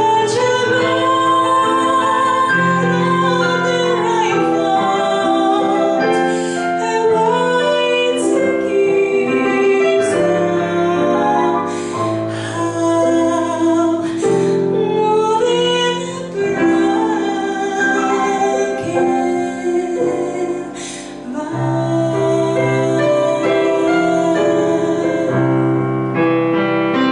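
A woman sings a song with long, wavering held notes, accompanied by chords on a digital piano.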